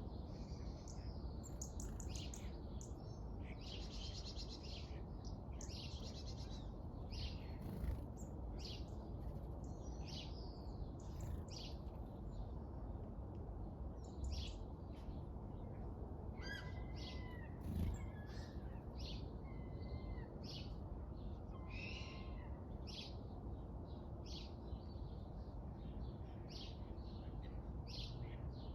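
Birds chirping and calling, many short sharp chirps scattered throughout with a few longer warbling notes about two-thirds of the way through, over a steady low background rumble.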